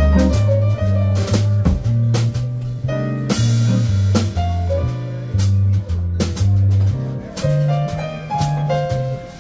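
Live jazz combo playing: electric bass holding a line of low notes that change about twice a second, drum kit keeping time with a cymbal crash about three seconds in, and archtop guitar and piano on top.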